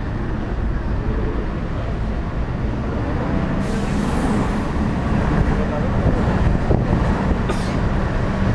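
Steady running noise of a moving sightseeing bus and street traffic, heard from its open upper deck, with a steady low engine hum. Two brief hissing rustles come about four seconds in and near the end.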